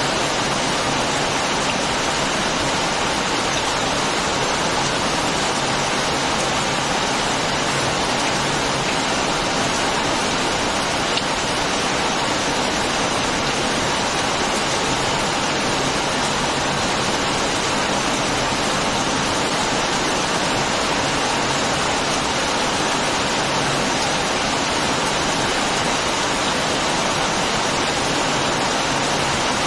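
Heavy rain falling steadily, an even hiss without a break.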